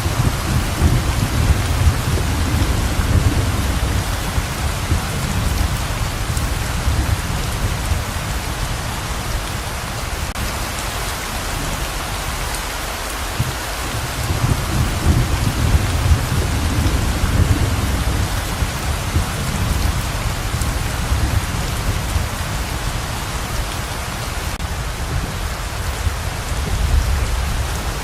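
Heavy rain pouring steadily. Low rolls of thunder rumble under it in the first few seconds, again about halfway through, and near the end.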